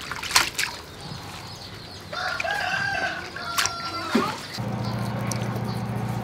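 A rooster crowing once, about two seconds in, its call ending in a falling note. A couple of sharp clicks come just before it, and a steady low hum starts about four and a half seconds in.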